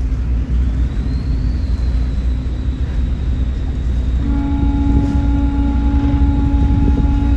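The ferry boat's engine runs with a low, steady rumble. About four seconds in, a ship's horn sounds one long, steady deep blast over it.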